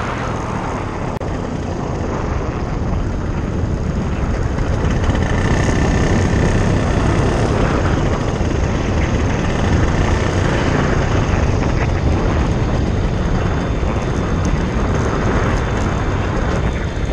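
Paramotor's two-stroke engine and propeller running steadily in flight.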